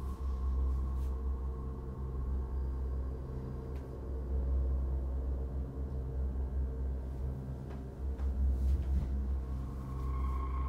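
Dark ambient horror score: a deep, steady drone with faint sustained tones held above it.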